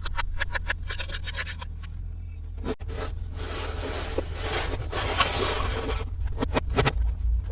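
Hands handling the pieces and packaging of a Minnie Mouse toy playset: a run of quick light clicks, then a longer stretch of scraping and rustling, with more clicks near the end.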